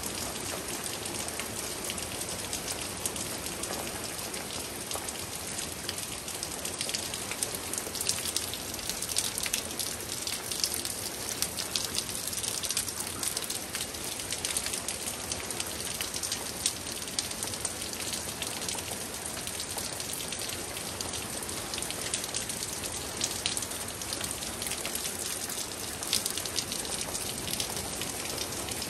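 Steady rain from a thunderstorm, with many sharp ticks of individual drops striking close by, thickest through the middle stretch.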